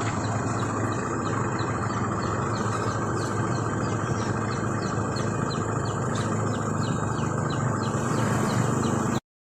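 Outdoor ambience of birds chirping in quick short calls, several a second, over a steady high insect whine and a low steady rumble; it all cuts off abruptly near the end.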